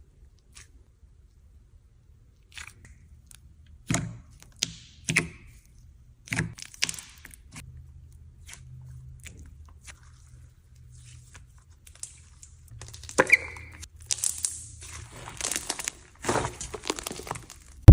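Slime being squished and pressed by hand, giving irregular sharp clicks and crackles that come thicker and louder over the last few seconds.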